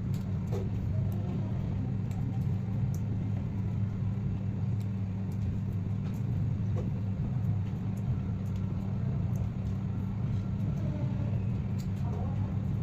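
Steady low hum, with a few faint light clicks over it.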